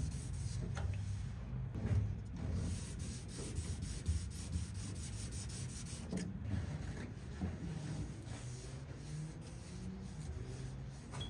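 Hand sanding with 600-grit sandpaper on the painted steel of a pickup bed: quick, scratchy back-and-forth rubbing strokes, flattening out a run in the single-stage paint.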